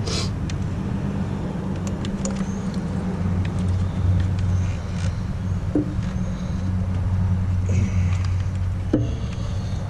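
A vehicle engine running steadily at idle, a low even hum, with a few light clicks and knocks of parts being handled, a sharper one near the end.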